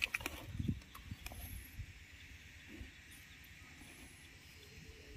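Water buffalo grazing: quiet tearing and rustling of grass. There are a few soft knocks in the first second, then a faint steady hiss.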